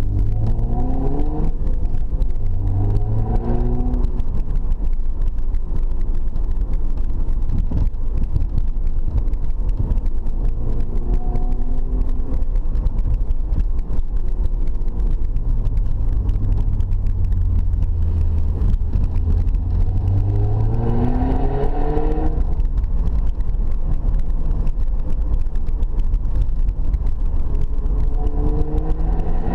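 Car engine and road rumble heard from inside the cabin while driving: the engine note climbs several times as the car accelerates, around the start, a few seconds in, about two-thirds through and near the end, with a steadier cruising drone in between.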